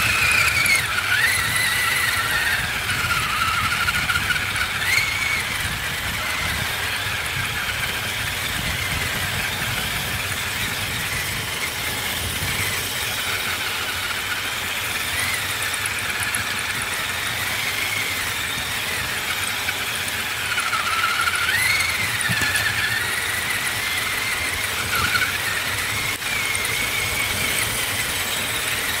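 Electric motor and gears of a scale RC rock crawler whining under the onboard camera. The high whine rises and falls in pitch as the throttle changes, over a rough rumble from the drivetrain and tyres on dirt.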